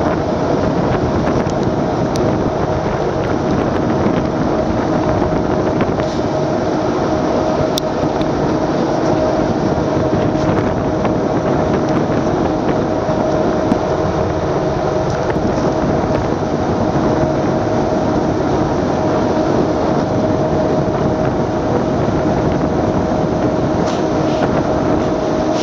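Boat engine running at a steady hum, with wind on the microphone and rushing water beneath it.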